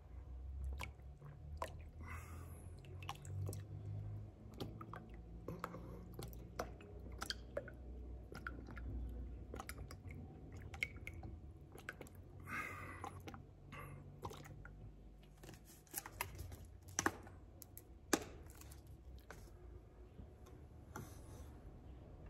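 Quiet room tone in a silent pause: faint scattered clicks and soft rustles over a low steady rumble, with two sharper clicks about three quarters of the way through.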